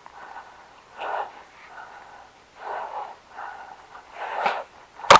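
A person breathing heavily close to the microphone, several loud breaths a second or so apart. At the very end comes a quick burst of sharp clicks.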